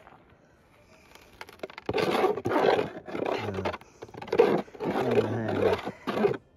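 Minelab gold metal detector sounding its target signal through its speaker: about five loud, wavering tones in a row as handfuls of dirt are passed over the coil. The signal comes from a small gold nugget in the dirt.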